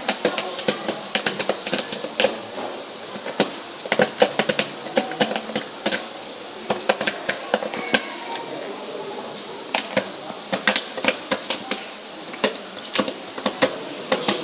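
Armadillo rooting and digging at a cork bark log: irregular sharp clicks and scratches of claws and snout on bark and soil, several a second in bursts. Faint voices murmur behind.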